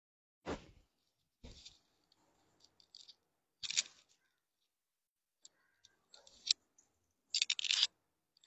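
Cloth rustling in short, irregular bursts as a draped mekhela chador is taken off and handled, with a dull thump about half a second in and another near a second and a half.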